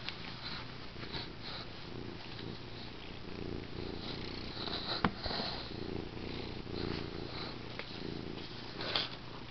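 Domestic cat purring steadily, close up, while rubbing its face and head against a corrugated cardboard scratcher doused with catnip, with soft rustling scrapes of fur on cardboard. A single sharp click about halfway through.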